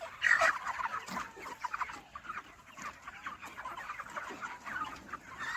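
A flock of 36-day-old broiler chickens calling, a dense, continuous chatter of many short clucks and cheeps overlapping.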